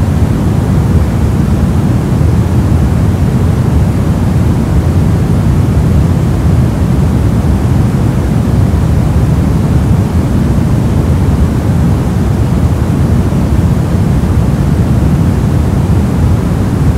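Steady soft noise: a deep, even rush, strongest in the low end and fading toward the highs, with no change in level.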